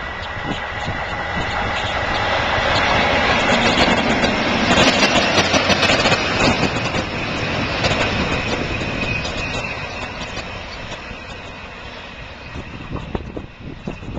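Class 37 and Class 20 diesel locomotives (English Electric V12 and V8 engines) hauling a flask train past. The engine sound grows as they approach, is loudest about four to six seconds in with a rapid clatter, and then fades as the wagons roll by and away.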